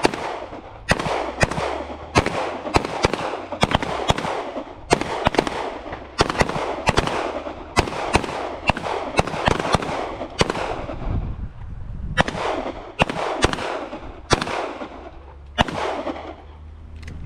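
Several handguns firing along a range line: many sharp shots at irregular spacing, often in quick pairs and overlapping between shooters, each followed by an echo.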